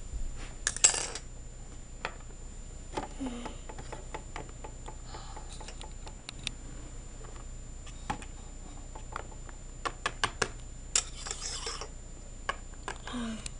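Plastic toy figures and playset pieces clicking and tapping as they are handled and set down on a hard surface, with a couple of brief rustling scrapes.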